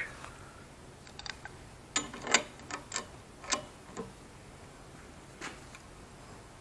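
A homemade spanner wrench clicking and tapping against the metal burner fittings: about eight short sharp metallic clicks at irregular spacing, the loudest about two seconds in.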